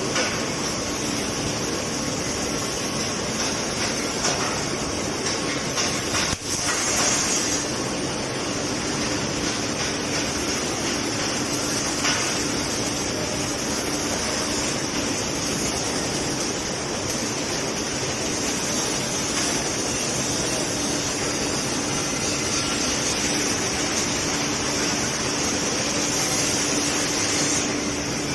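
Steady mechanical noise of a robotic welding installation: a continuous hiss with a constant low hum, with a brief dip about six seconds in.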